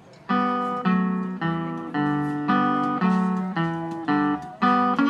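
Hollow-body archtop guitar playing a steady run of chords in an Americana medley, about two a second, after a brief gap at the start.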